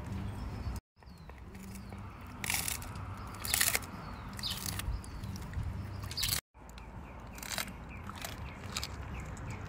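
Siberian husky chewing a trout head, the fish's bones crunching in sharp, irregular cracks about a second apart. The sound drops out twice for a split second.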